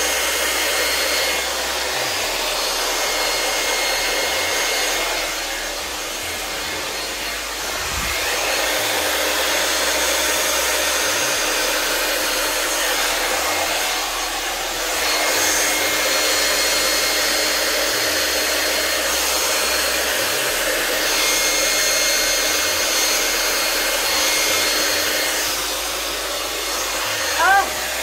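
Handheld hair dryer running steadily on high, blowing wet acrylic pour paint outward across the canvas to open a bloom, its whoosh dipping slightly now and then as it is moved. A brief squeaky chirp sounds near the end.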